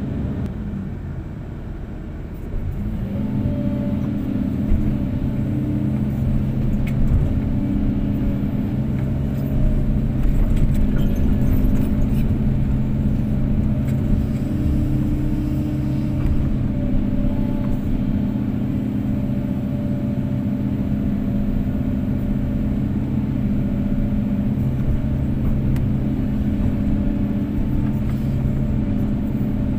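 Kobelco SK250-8 excavator's diesel engine running under load. It sags in the first couple of seconds, picks back up about three seconds in and then holds a steady, even drone.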